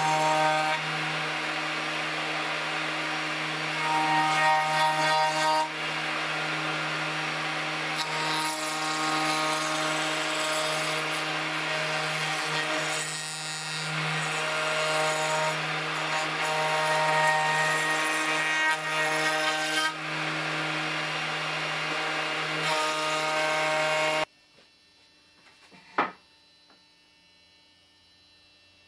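Table-mounted router running with a steady high whine while a wooden bench leg is fed past the bit, the cutting noise swelling and easing as the wood is pushed through. About 24 seconds in it cuts off suddenly to a quiet room, with a single sharp knock a couple of seconds later.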